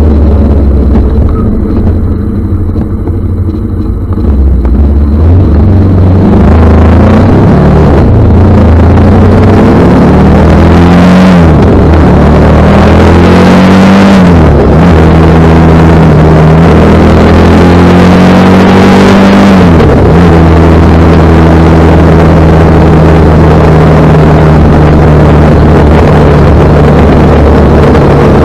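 Kawasaki ER-5's parallel-twin engine pulling away at low revs, then accelerating through the gears, its pitch rising and dropping sharply at each of several upshifts before it holds steady at cruising speed. A rush of wind noise grows as the speed picks up.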